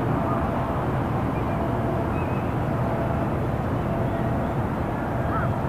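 Calm harbour ambience: a steady low rumble of traffic from a nearby main road with a faint steady hum, and a few faint short bird calls, a couple more of them near the end.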